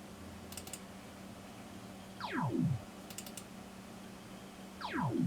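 A repeating electronic sound from a computer's speakers: a falling pitch sweep twice, about two and a half seconds apart, with a short burst of faint high clicks between the sweeps. It plays over a steady low hum.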